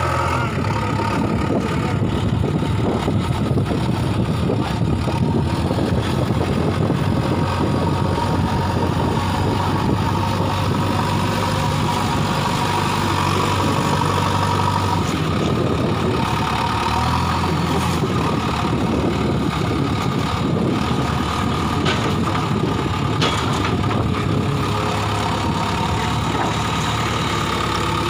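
JCB 3DX backhoe loader's diesel engine running steadily while it works the front loader with a bucketful of soil. The engine note changes about halfway through and again a few seconds later.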